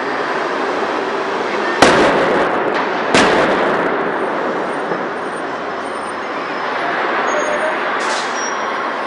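A staged stunt car crash involving a taxi: two loud bangs about a second and a half apart, the first the louder, each followed by a short ringing tail, over a steady background of street noise.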